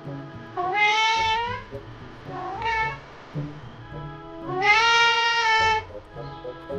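A cat meowing three times over background music: a drawn-out meow about a second in, a short one near the middle, and the longest one near the end, each fairly level in pitch.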